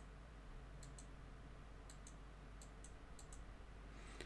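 Near silence: room tone with a few faint, sharp clicks, mostly in close pairs.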